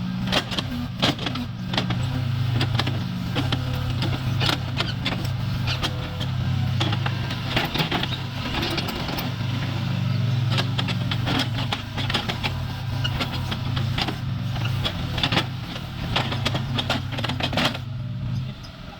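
Excavator's diesel engine running steadily while digging, with frequent sharp knocks and clanks; the engine sound drops away about a second before the end.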